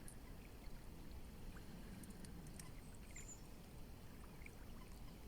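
Faint, steady rush of a flowing river, with a few brief high bird chirps scattered over it.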